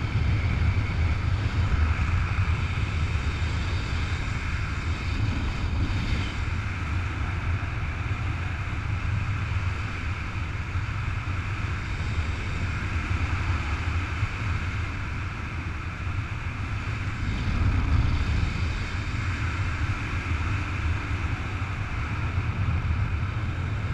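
Wind rushing over the camera microphone in paraglider flight: a steady rumbling noise, heaviest in the low end, that swells briefly about eighteen seconds in.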